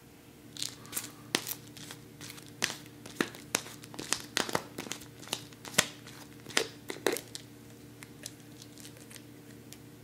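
Hands opening a plastic supplement capsule bottle: a run of sharp crinkling clicks and crackles as the cap is worked off, thinning out after about seven seconds.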